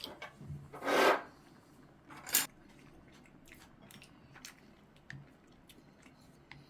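Kitchen handling sounds while cooking: two short scraping rasps, the second sharper, followed by a few light clicks and taps.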